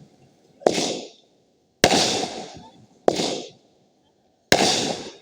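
Fireworks going off: four sharp bangs roughly a second apart, each trailing off in a short hiss.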